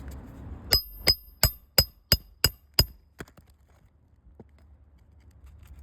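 Hammer blows on metal on a shingle roof: seven quick strikes, about three a second, each with a bright metallic ring, then a lighter strike and a faint tap.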